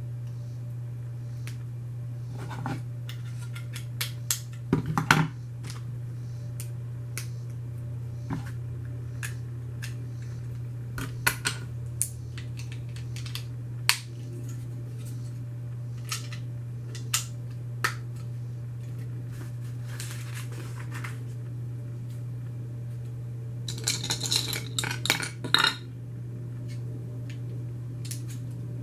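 Small plastic Lego pieces clicking and clattering as they are handled during building, in scattered single clicks with a quick run of rattling about 24 seconds in. A steady low hum runs underneath.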